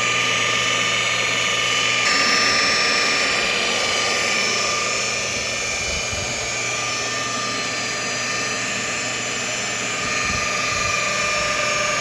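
Electric polishing machine running steadily with a constant motor whine while polishing car window glass to remove acid-rain water spots; its level shifts slightly about two seconds in and again near ten seconds.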